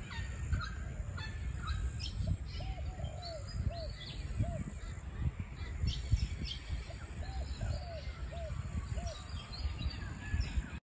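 Birds calling: loose runs of short, arched mid-pitched calls, with sharp high chirps scattered among them, over a low rumble.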